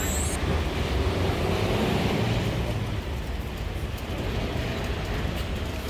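City street ambience: steady noise of road traffic.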